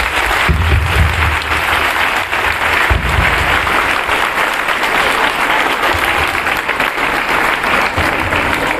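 Crowd of schoolchildren and teachers clapping steadily, many hands at once, greeting the flag as it is unfurled. A couple of low rumbles sound under the clapping, about half a second and three seconds in.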